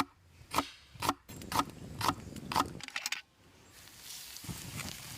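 A run of about seven sharp knocks, roughly two a second, stopping about three seconds in, after which a steady hiss takes over.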